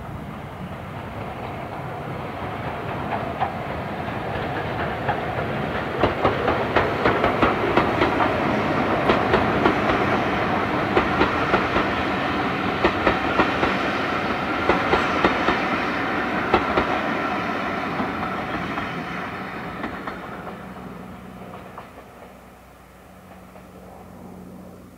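Steam-hauled passenger train passing: the Schools class 4-4-0 engine goes by, then the coaches roll past with their wheels clicking rhythmically over the rail joints. It grows louder to a peak in the middle and fades away over the last few seconds as the train recedes.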